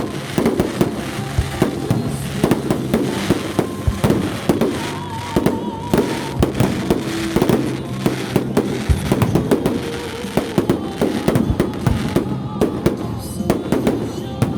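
Fireworks going off in a dense barrage: a rapid, continuous run of sharp bangs and crackles, several a second.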